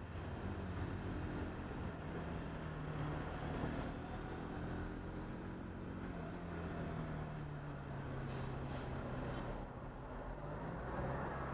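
Bajaj Pulsar 200NS single-cylinder engine running at low, slightly varying speed in slow traffic, over a steady rush of road noise. A short hiss comes twice about eight seconds in.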